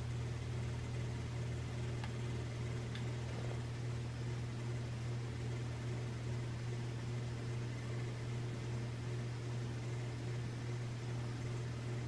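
1997 Hampton Bay Rockport ceiling fan motor running at a reduced remote speed with its pull chain on medium. It gives a steady low hum and buzz over the whoosh of the blades. The buzz is the sign of the motor trying to reach full speed with too little capacitance, the same effect as a failing capacitor.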